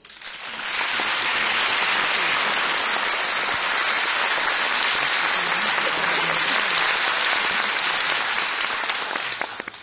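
Audience applauding, with hands clapping close by. The applause swells in within the first second, holds steady, and dies away near the end.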